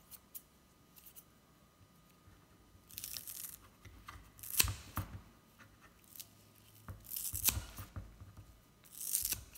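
Five-blade herb scissors snipping through a bunch of fresh coriander: about five sharp, crisp cuts, the first about three seconds in.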